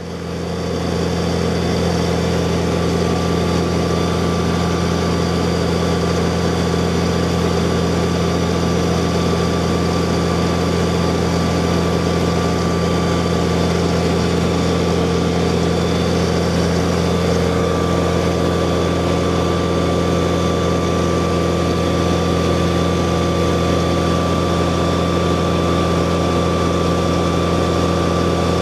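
E-One fire engine running at its pump panel, a steady, even engine drone with a strong low hum and a few constant tones above it. It fades in over about the first second, then holds unchanged.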